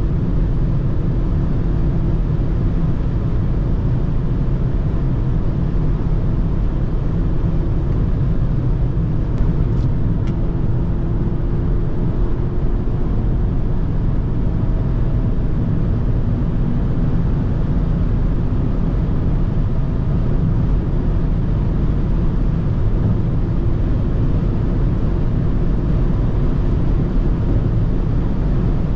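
Cabin noise of a BMW X2 xDrive20i at Autobahn speed, around 180 to 217 km/h: a steady rush of wind and tyre noise over the drone of its 2.0-litre turbocharged four-cylinder engine under load.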